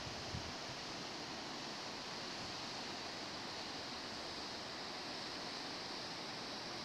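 Steady rushing of a river in winter flow past ice floes: an even hiss with no distinct events.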